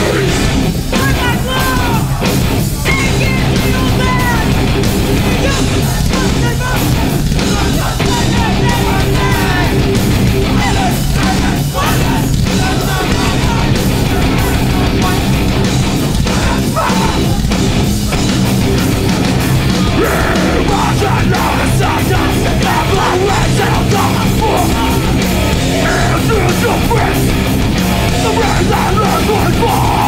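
Live metallic hardcore band playing loud and steady: heavily distorted electric guitars, bass and drums, with shouted vocals in places.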